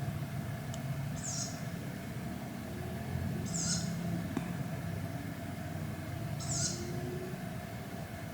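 A lone night bird repeats a short, high-pitched call that drops in pitch, three times, about every three seconds. A steady low rumble runs underneath.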